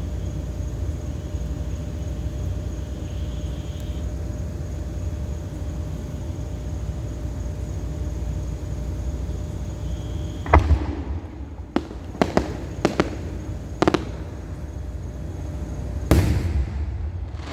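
Fireworks going off at a distance over a steady low rumble. A loud boom comes about ten seconds in, then a quick run of sharp cracks, and another boom near the end.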